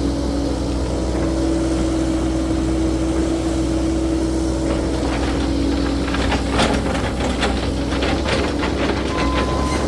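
Caterpillar 308E2 mini excavator's diesel engine running steadily. From about five seconds in, a quick run of sharp cracks and knocks comes over it.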